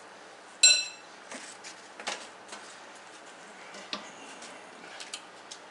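A utensil strikes a plate once with a short clinking ring, then lighter clicks and scrapes follow while food is served onto it.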